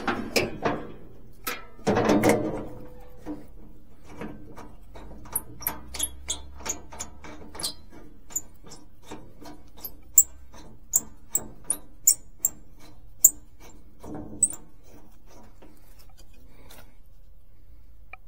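Gloved hands working on a band sawmill's steel frame and blade during a blade change: a clatter of metal about two seconds in, then a long run of sharp metallic clicks, a few a second, fading to quieter handling near the end.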